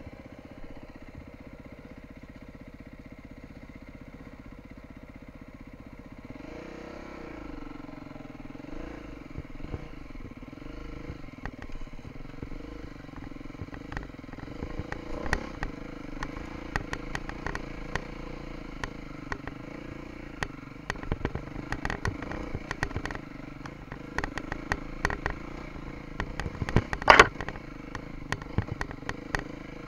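Beta 350 enduro motorcycle's four-stroke single engine idling steadily, then revving up and down from about six seconds in as the bike rides over rough trail. Many sharp knocks and rattles from the bike over the bumps, with one loud knock near the end.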